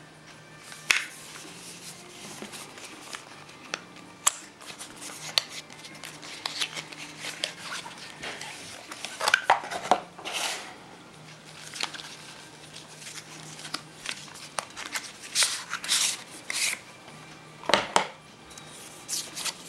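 Cardboard packaging and a screwdriver case being handled: irregular rustles, taps and light knocks as the box is opened and the case is slid out and picked up, with a louder cluster of scraping rustles about halfway through and another sharp one near the end.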